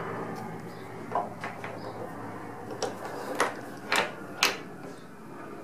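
Sharp metal clicks and knocks as a steel square collet block is loosened in a milling-machine vise and turned by hand to its next face, knocking against the vise jaws. There are several separate knocks, the loudest two close together about four seconds in.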